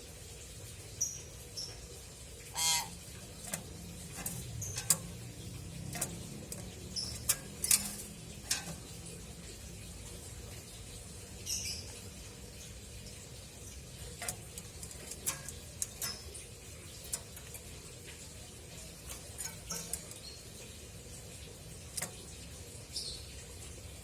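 Pet hill myna making short, scattered chirps and clicks, with a few louder pitched calls, over a steady low hum.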